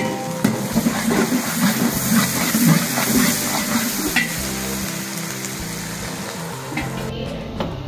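Mutton frying and sizzling in a pan as it is stirred; the sizzle cuts off suddenly about seven seconds in.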